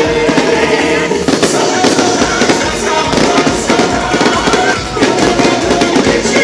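Fireworks going off in a dense run of cracks and bangs over music.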